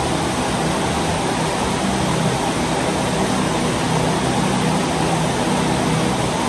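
Steady rain falling on trees, grass and a shed roof: a continuous, even hiss with no single drops standing out, and a faint low hum underneath.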